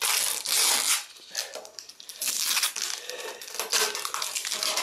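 Strips of tape being pulled and peeled off a plastic tractor hood: a loud rip in the first second, then softer ragged rustling and ripping.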